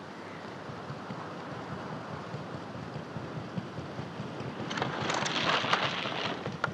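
Small fishing boat coming in to a slipway, with sea water washing around its hull and a louder rush of water from about five seconds in that lasts a second or two.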